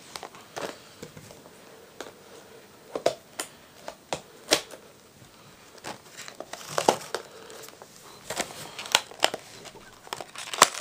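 Cardboard-and-plastic earphone packaging being handled: scattered crinkles and sharp clicks, sparse at first and coming thicker near the end.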